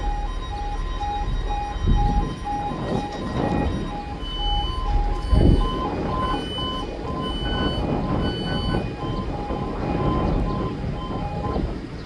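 Level crossing yodel alarm: two alternating tones repeating about twice a second, stopping near the end. A higher beeping joins in for a few seconds in the middle. Underneath is a low rumble with a couple of thumps.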